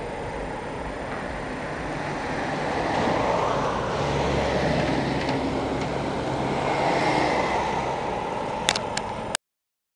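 Road traffic passing: cars driving by and a concrete mixer truck going past close with a low engine hum from about four seconds in. Near the end come three sharp clicks, then the sound cuts out.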